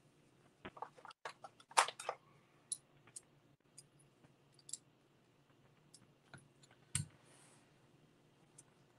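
Slip-joint pliers and plastic camber-link rod ends being handled: a run of small clicks and clacks, loudest about two seconds in, and a single sharper knock about seven seconds in, with lighter ticks between.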